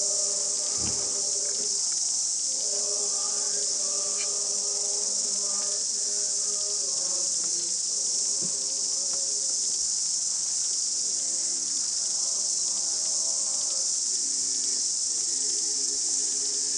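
A loud, steady chorus of cicadas, with a choir singing faintly underneath in held chords that come and go in phrases.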